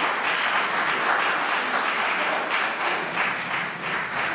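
Congregation applauding, a dense even clapping that eases slightly near the end.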